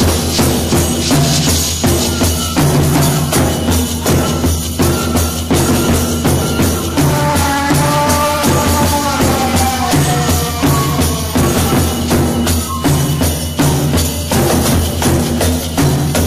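Background music with a steady percussion beat; a melody line stands out from about seven seconds in.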